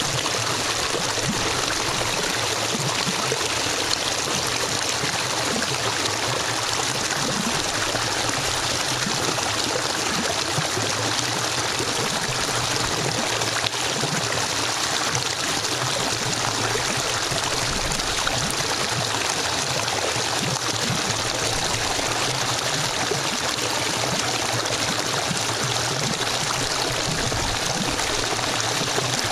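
River water flowing steadily, an even rushing hiss with no pauses.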